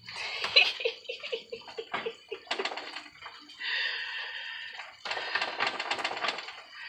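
Cooking-prep handling sounds at the stove: a quick run of rattling taps, a brief steady hiss about halfway through, then a burst of dense crackling and rustling.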